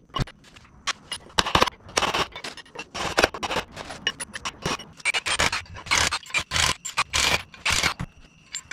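A steel punch scraping and knocking against a brake rotor and wheel hub assembly in quick, irregular strokes, with a faint metallic ring on some of them.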